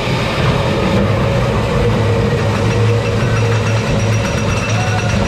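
Pax Wild Train 15 roller coaster train climbing its lift hill, pushed by a row of motor-driven rubber tyres: a loud, steady mechanical drone with a low hum underneath.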